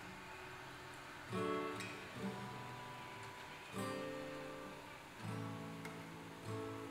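Background music played on acoustic guitar: slow, gentle chords, a new one about every second or so.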